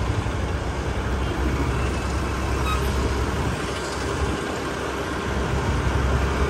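Steady road noise while riding a motor scooter through town traffic: the scooter's running engine and the surrounding vehicles, a continuous low rumble.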